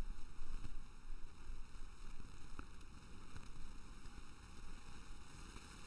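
Low steady microphone hiss and rumble with no speech, and a couple of faint clicks in the middle.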